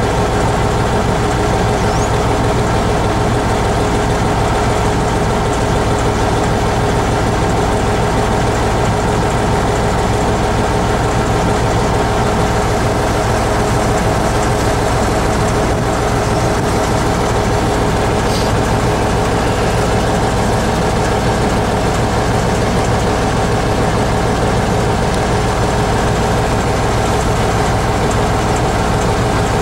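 T-150K tractor's diesel engine idling steadily, a constant low rumble with a steady whine over it.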